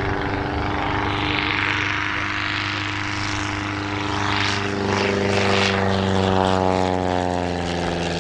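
Taylorcraft Auster Mk.V light aircraft passing overhead, its Lycoming O-290-3 four-cylinder air-cooled engine and two-blade wooden propeller droning steadily. The sound swells and then drops in pitch toward the end as the plane goes by.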